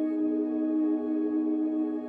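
Ambient music: a slow piece of long, steady held tones.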